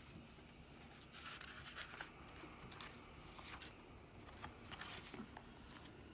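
Pages of a small paperback guidebook being flipped by hand: soft, faint paper rustles and swishes, bunched about a second in and again around four to five seconds.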